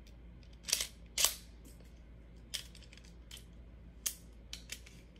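Sharp plastic clicks from a Beyblade Burst top's parts, World Spriggan's layer and chassis, being twisted and locked together. There are about seven clicks, the two loudest close together about a second in, then scattered fainter ones.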